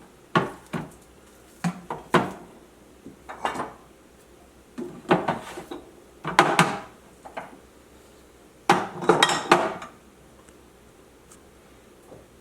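Condiment bottles and jars being set down one after another on refrigerator shelves: a string of separate clunks and clinks with short pauses between them, and a busier run of knocks about three-quarters of the way through.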